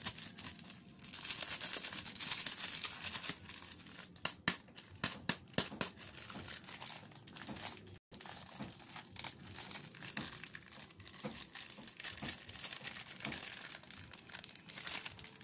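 Thin plastic bag of flour crinkling and rustling as it is handled and opened over a bowl, with many small sharp crackles; the sound drops out for an instant about eight seconds in.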